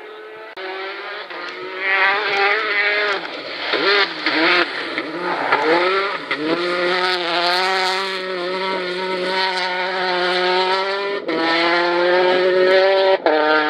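Peugeot 208 rally car's turbocharged four-cylinder engine at full attack: revs rising and falling through gear changes, then held high as the car speeds past, with a brief lift near the end.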